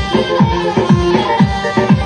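Kurdish wedding dance music played loud: deep electronic drum hits that drop in pitch, a little under three a second in a steady beat, under an electronic melody line.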